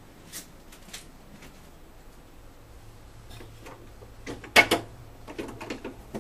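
Clicks and knocks of a metal apartment front door's lock and lever handle being worked. The loudest pair comes about four and a half seconds in, with a few lighter clicks before and after it.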